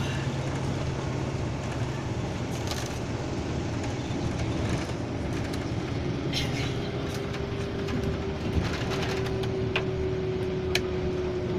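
Moving vehicle heard from inside the cabin: steady engine and road rumble, with an engine tone that slowly drops in pitch over the second half. A few sharp rattles or ticks come near the middle and near the end.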